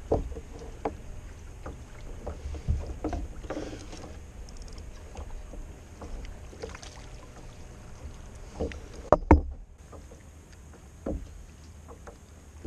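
Handling knocks and thumps on a plastic sit-on-top kayak as a bream is landed with a net and unhooked, the loudest a pair of sharp knocks about nine seconds in. Under them runs a steady low rumble.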